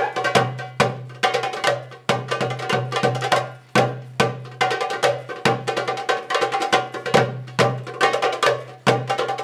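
Two doumbeks (Middle Eastern goblet drums) played together in a fast drum solo: deep doum strokes ringing low under quick, sharp tek and ka strokes and rolls.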